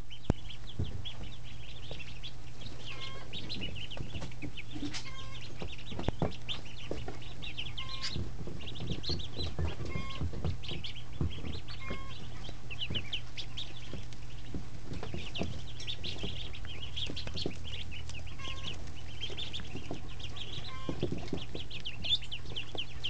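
A crowded brood of two-day-old Pekin, Rouen and Muscovy ducklings peeping without pause, many short high chirps overlapping, over a steady low hum and a few soft knocks.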